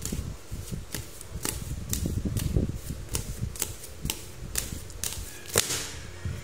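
A tarot deck being shuffled overhand by hand: an irregular run of crisp card clicks and slaps, about two or three a second. Near the end there is one louder slap as a card drops out onto the wooden tabletop.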